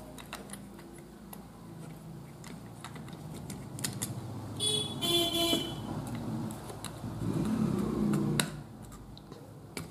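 Small screwdriver turning brass terminal screws on a 3-pin socket, with faint metal clicks and scrapes as the wires are clamped. A brief high-pitched toot sounds about five seconds in.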